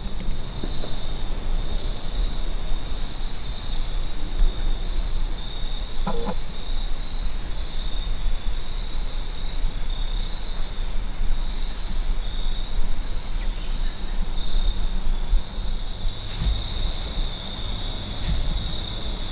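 A chorus of insects trilling steadily at one high pitch, over a low steady rumble.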